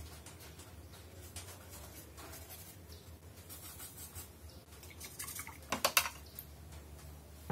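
Small paintbrush dabbing paint onto a styrofoam sheet: faint soft taps and scratches, with a short run of louder clicks about six seconds in.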